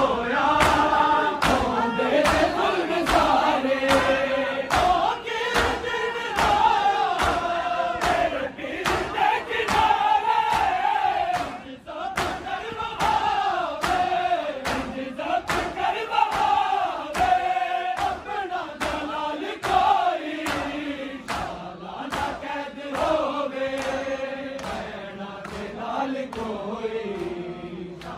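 A noha, a Shia mourning lament, chanted by a group of men in unison. Sharp strikes come in steady time with it, about one and a half a second: the mourners' chest-beating (matam).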